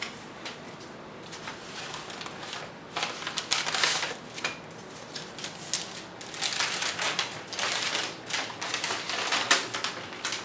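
Stiff paper rustling and crinkling as a folded paper map is handled, drawn from an envelope and opened out, in a short spell about three seconds in and a longer one from about six seconds in.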